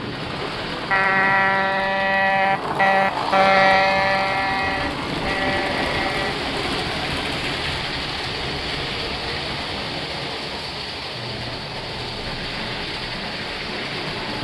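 Train horn sounding a series of blasts at one steady pitch: a long blast, two short ones, a longer one, then a final blast, over a steady running rumble that carries on after the horn stops.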